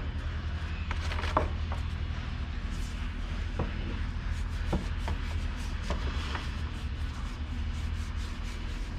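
Braided aircraft landing-gear bungee cords being flexed and handled in gloved hands: soft rubbing with a few faint taps, over a steady low hum.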